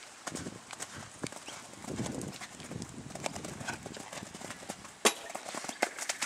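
Hoofbeats of a cantering horse on a sand arena, a run of dull thuds and sharper knocks, with one loud sharp knock about five seconds in.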